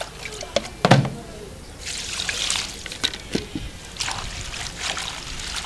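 Water splashing and trickling as hands wash leafy greens in a plastic basin, in irregular spells, with a single thump about a second in.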